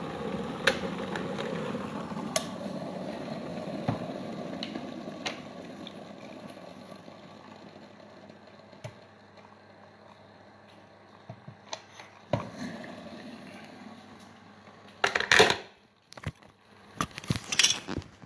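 Electric kettle just off the boil, its hiss of boiling water slowly dying away over several seconds, with a few light clicks and knocks of a kettle and jug being handled. Near the end, two short bursts of loud rubbing and scraping from a phone being handled.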